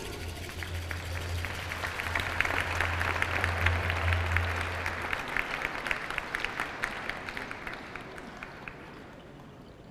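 Audience applauding, swelling over the first few seconds and then thinning out until it dies away about nine seconds in. A low steady hum sits under the first half.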